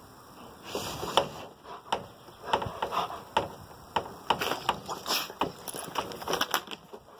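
A dog's claws scraping and tapping on a plastic edge as it paws at it, giving irregular clicks, knocks and scrapes.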